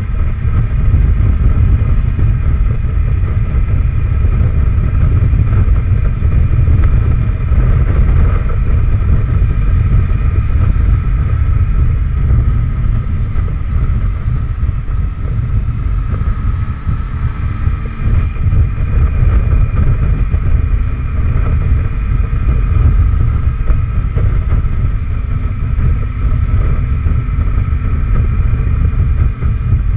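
Onboard sound of a Benelli TRK502X motorcycle's parallel-twin engine running at road speed, with a faint engine note that shifts slightly in pitch, largely buried under heavy wind rumble on the camera's microphone.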